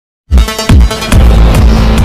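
Loud electronic intro music that starts suddenly about a third of a second in, with heavy bass hits and quick falling bass sweeps.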